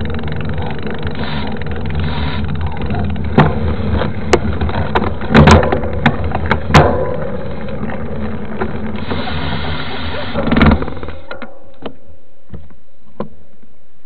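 Wind rushing over the microphone of a mountain bike's fork-mounted camera and tyre noise as the bike rolls fast down an asphalt road, with several sharp knocks and rattles from the bike over bumps. The rushing drops away suddenly about eleven seconds in as the bike slows, leaving a few scattered clicks.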